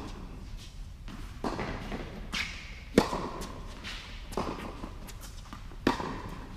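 Tennis rally in an echoing indoor hall: sharp pops of racket strings on ball come about every second and a half, each ringing on in the hall. The loudest hits come about three seconds in and again near the end.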